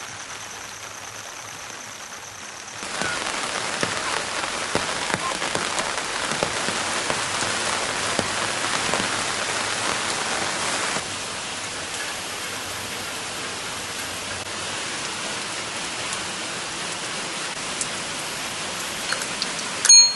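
Steady rain falling, with individual drops pattering. It comes in about three seconds in and eases slightly after about eleven seconds.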